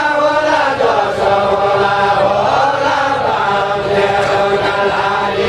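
A group of voices singing a Deuda song together in a slow, chanted line, holding long notes that bend slowly in pitch.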